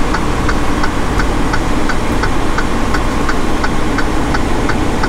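Tow truck's engine running steadily, heard from inside the cab as the truck rolls slowly, with an even ticking about three times a second over it.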